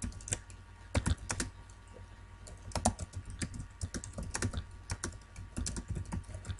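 Typing on a computer keyboard: uneven runs of keystroke clicks with short pauses between words, over a low steady hum.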